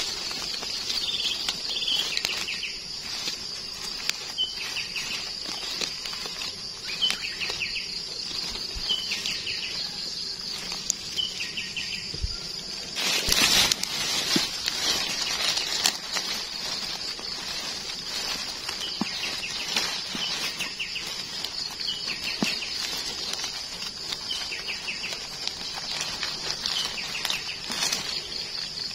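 A steady high-pitched insect drone, with scattered short chirps, over crackly rustling of dry leaves and twigs as gloved hands dig mushrooms out of the forest floor. The rustling is loudest about 13 seconds in.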